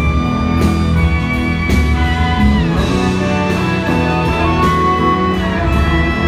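A live band playing a song: a held melody with some pitch slides over bass and a steady beat.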